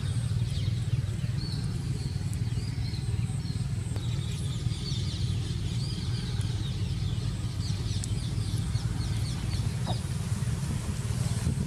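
A steady low hum, like a motor running, with many short high bird chirps scattered over it.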